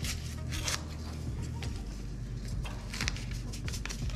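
Packet of unflavored gelatin crinkling as it is handled, opened and shaken out over a bowl, in several short crackles.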